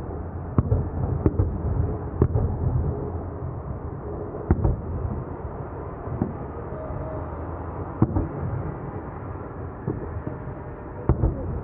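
Fireworks display going off: sharp bangs of shells bursting at irregular intervals, about a second to several seconds apart, over a steady rumbling background of crowd and distant bursts.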